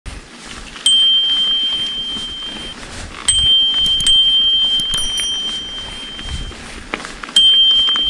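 Knog Oi bicycle bell being rung: four clear pings, each a single high ringing tone that fades slowly over a couple of seconds, with a few light clicks of the striker in the middle.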